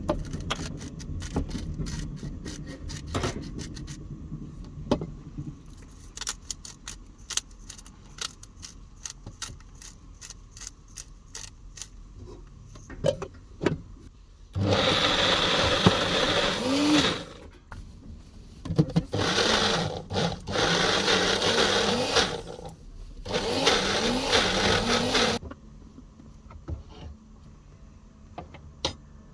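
Small blender motor running in three bursts of a few seconds each, about halfway through and toward the end, whirring while it purées hummus. Before the bursts come many sharp clicks and knocks.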